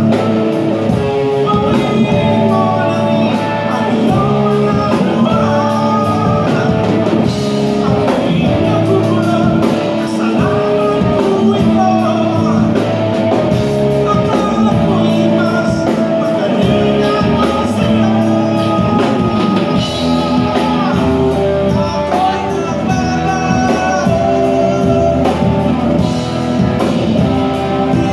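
Live rock band playing: a singer over electric guitar and a drum kit.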